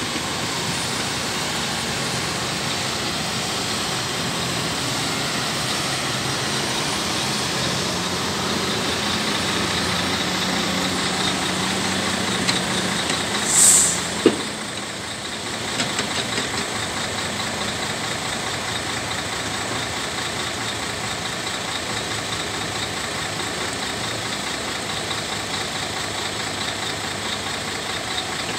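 Diesel engine of a Volvo A30D articulated dump truck running steadily as it drives across the site, with a short loud hiss about halfway through and a click just after it.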